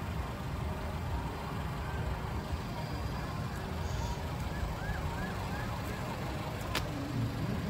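Outdoor ambience: a steady low rumble, with a few faint high chirps in the middle and a single sharp click near the end.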